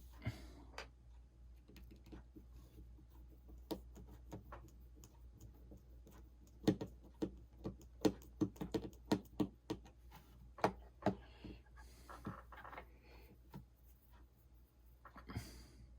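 Small irregular clicks and taps of repair tools and parts against an iPhone 6 being reassembled, with a busy run of quick taps in the middle, over a low steady hum.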